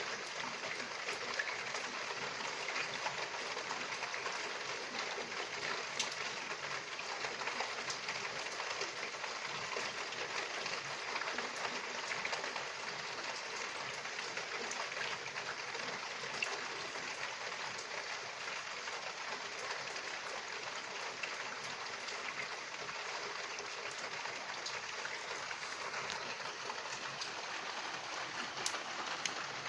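Rain falling steadily: an even hiss with many small drop ticks scattered through it.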